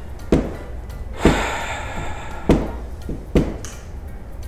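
Four loud knocks, about a second apart, over a steady low background; a rougher noise follows the second knock for about a second.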